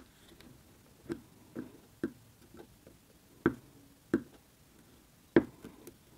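Wooden craft stick poking into a jar of clear slime, making a string of separate sharp sticky clicks and pops, about seven in all, the loudest about halfway through and near the end.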